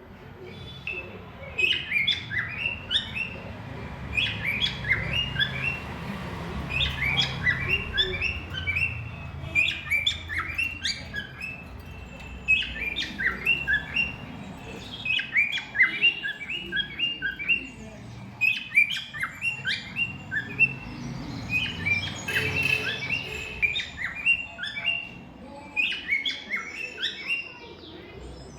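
Small pet parrots chirping in quick runs of short, sharp chirps, with brief pauses between runs, over a low background rumble.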